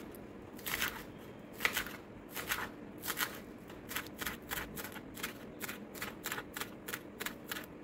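Kitchen knife chopping spring onions finely on a wooden cutting board: short crisp chops, a few spaced strokes at first, then a steady run of about three a second.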